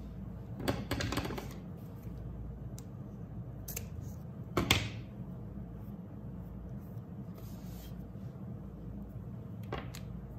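Paper sticky notes and washi tape handled and pressed onto a spiral notebook page: a cluster of soft crackles about a second in, one sharper, louder crackle around the middle, and a faint click near the end, over a low steady hum.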